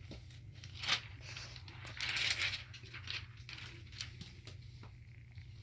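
Handling of a laptop's plastic lid parts and replacement LCD panel: a sharp plastic click about a second in, a rustling scrape around two seconds in, and scattered light ticks as the screen is lined up.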